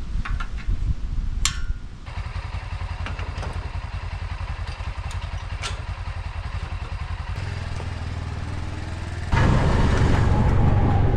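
Small gas engine of a Huskee hydraulic log splitter running steadily, with a sharp knock about a second and a half in. About nine seconds in the engine grows louder and stays so.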